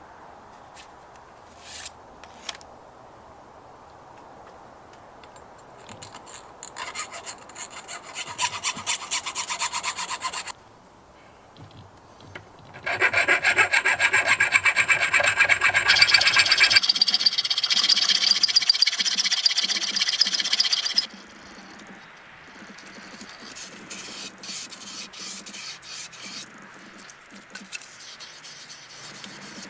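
Rapid rasping, scraping strokes of hand tools working the cut end of a mountain bike fork's steerer tube: finishing the cut and cleaning up its edge. The strokes come in three spells: a moderate one, a long loud one in the middle, and a quieter one near the end.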